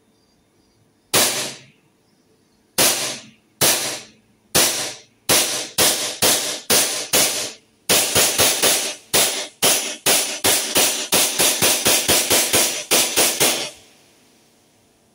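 Army Armament Combat Master 6mm gas blowback airsoft pistol firing about thirty shots, each a sharp crack of gas and cycling slide with a short echo. The first shots are spaced a second or so apart, and from about eight seconds in they come in quick succession until the magazine runs empty near the end.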